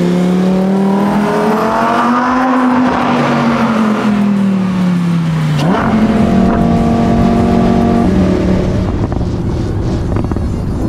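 Lamborghini Huracan Evo's V10 through a straight-piped Soul Performance titanium exhaust with no muffler or catalytic converters, running hard under throttle. The engine note rises and then falls over the first five seconds or so, changes abruptly about six seconds in, holds steady for a couple of seconds, then fades into a rushing noise.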